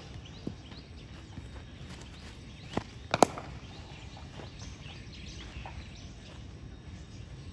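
Cricket ball bouncing on the practice pitch, then struck by the cricket bat about three seconds in: a short knock followed a moment later by a sharp crack, the loudest sound.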